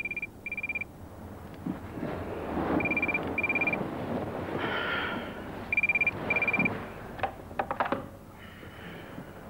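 Telephone ringing in a double-ring pattern, ring-ring then a pause, three times about three seconds apart, with a few sharp clicks near the end.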